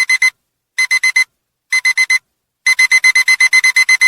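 Digital alarm-clock beeping as a countdown timer reaches zero. Short high beeps come in quick groups of four, three groups about a second apart, then an unbroken run of faster beeps for the last second and a half.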